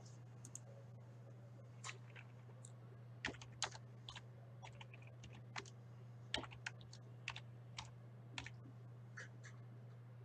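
Irregular light clicks of computer keyboard keys and mouse buttons, each one short and sharp, over a steady low electrical hum.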